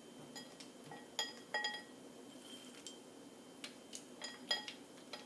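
Nuts dropped into a glass dish, clinking against the glass in a few quick clusters of short ringing clinks.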